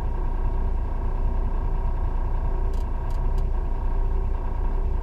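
Volvo VNL 780 semi-truck's diesel engine running steadily at a standstill, a low even rumble heard inside the cab.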